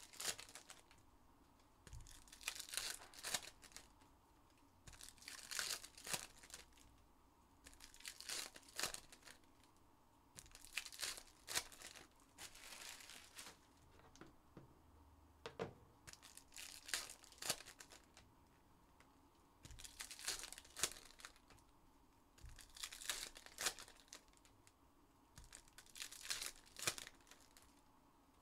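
Trading-card pack wrappers being torn open and crinkled, one pack after another, in short crackly bursts every two to three seconds.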